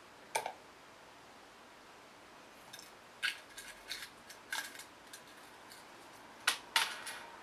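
Small metallic clinks and clicks as a brass pocket watch and its chain are handled: one click near the start, a quick cluster in the middle, and the two loudest near the end.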